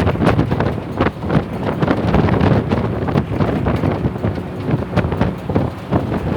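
Tamil Nadu government bus running on the road, heard from inside: steady engine and road noise with wind buffeting the microphone and frequent rattles and knocks from the bodywork.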